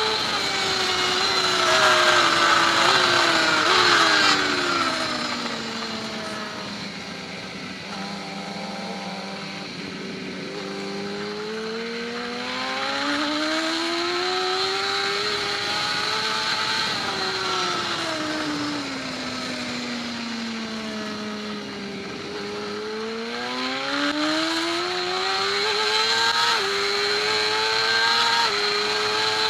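BMW S1000RR inline-four engine at racing revs, its pitch sweeping down and up in long slow swings with wind rush throughout.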